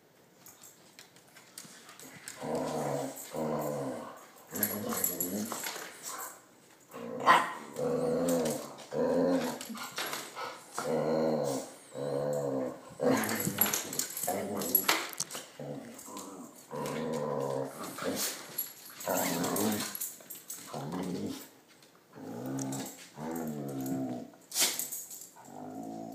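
Dog growling at another dog in a long run of rumbling growls, each about a second long, with short breaths between, broken by a few sudden sharp sounds. The growls are a warning: one dog does not like the other coming near.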